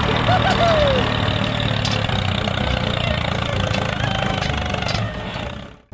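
Engine idling steadily with a low chugging, fading out and cutting off just before the end.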